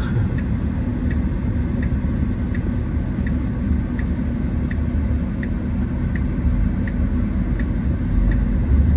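Tesla cabin at a standstill: a low steady rumble, with the turn signal ticking evenly a little under two times a second.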